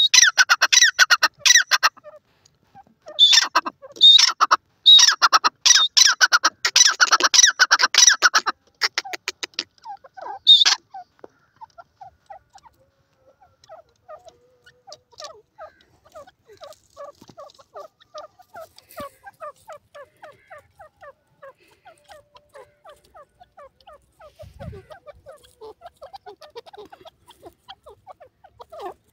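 Grey francolin calling: loud bursts of rapid repeated notes through roughly the first eight seconds, one more short burst a couple of seconds later, then much softer quick clucking notes for the rest.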